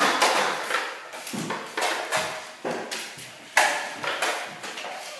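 Drywall taping knives scraping joint compound against metal mud pans and the ceiling board in quick, irregular strokes, one scrape every half second to a second.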